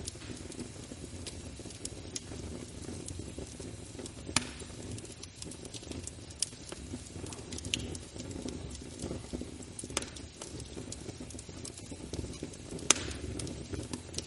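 Wood fire burning in a fireplace: a steady low rumble of flames with irregular crackles and pops. Two louder snaps come about four seconds in and near the end.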